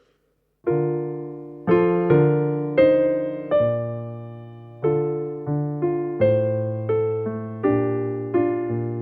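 Keyboard playing slow piano chords, starting just under a second in. Each chord is struck and left to die away before the next, about one to one and a half a second.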